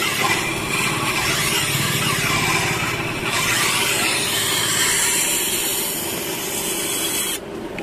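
Steel hedge-shear blade ground against a motor-driven sharpening wheel (saan): a steady, hissing grind over the running wheel, sharpening the blade's cutting edge. The grinding stops about seven seconds in as the blade comes off the wheel.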